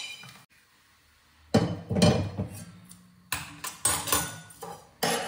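A stainless steel kadai is set down with a clank on a gas stove's burner grate about one and a half seconds in, ringing briefly. A few sharp metal clinks and knocks of kitchen utensils follow.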